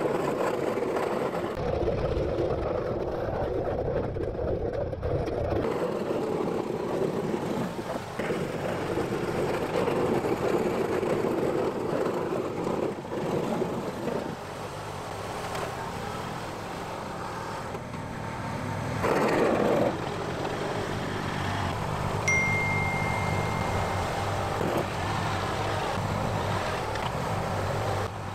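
Ride-on lawn tractor's engine running as it pushes snow with a front-mounted plow blade.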